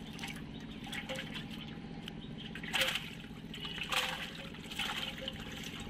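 Water splashing and dripping in short bursts as fish are pulled out of a wet cast net, loudest twice near the middle, over a steady low hum.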